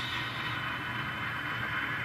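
ScaleTrains N scale Tier 4 GEVO (ET44AC) model locomotive creeping along slowly, its ESU LokSound decoder playing a steady diesel engine sound through the model's small speaker, with a thin steady whine on top.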